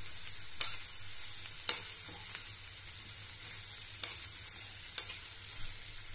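Chopped onions frying in hot oil in a pan, a steady sizzle, with a spatula stirring and scraping the pan four times.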